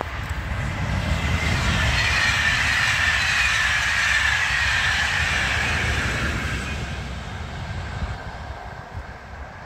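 Passenger train passing by on the main line: its noise swells over a couple of seconds, holds, then fades away, with a high whine that slides down in pitch as the train goes past.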